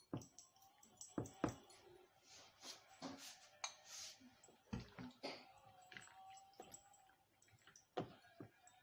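Faint handling sounds of hands mixing raw chicken pieces with flour in a foil-lined metal bowl: irregular soft squishes, small knocks and foil crinkles. About halfway through there is a short hiss as something is shaken out of a plastic container.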